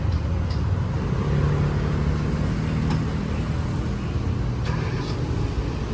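Street traffic: a motor vehicle's engine running close by, a steady low rumble with a hum that swells about a second in and eases off after a few seconds.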